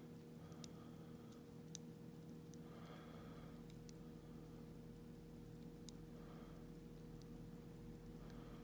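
Faint clicks of a lock pick working the pins of an Iseo pin-tumbler lock cylinder, with two sharper clicks in the first two seconds and another about six seconds in, over a steady low hum.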